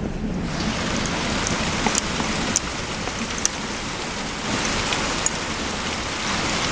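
Hard rain pouring down steadily, thickening about half a second in, with a few sharp ticks from drops landing close by.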